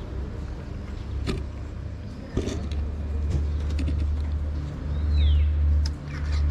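A steady low engine rumble, like a motor vehicle running close by, growing louder about two and a half seconds in, with a few sharp clicks and a short high chirp about five seconds in.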